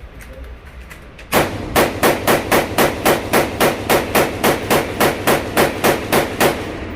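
Rapid gunfire from a firearm: a string of about twenty shots fired in quick succession, about four a second, starting about a second in.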